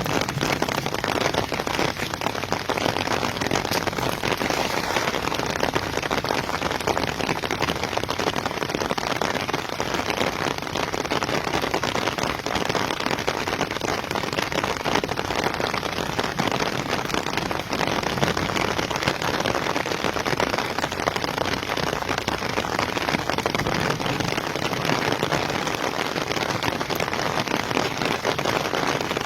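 Steady rain falling, a dense, even patter of raindrops that keeps on without a break.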